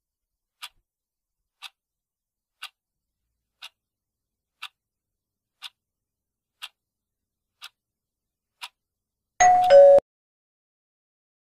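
Quiz countdown timer ticking once a second, nine even ticks. As it runs out near the end, a short, loud two-note alert sounds, the higher note first and then a lower one, signalling time is up.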